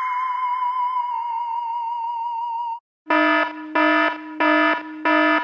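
An electronic tone drops sharply in pitch and holds, slightly wavering, for nearly three seconds, then stops. After a brief gap a buzzing electronic alarm starts, pulsing on and off about one and a half times a second.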